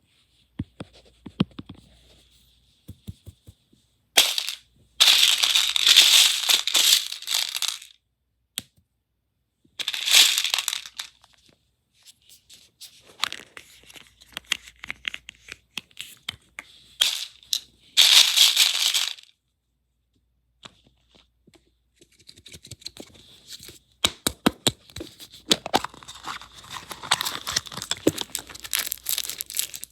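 Wrappers crinkling and tearing in several long bursts, mixed with small clicks and knocks, as surprise eggs are unwrapped and opened.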